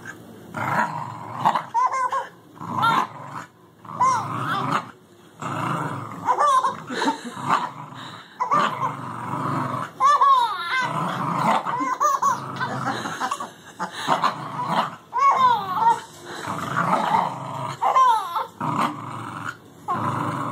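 A Welsh Terrier growling in play as it tugs on a toy, with a baby laughing in repeated short bursts of high giggles.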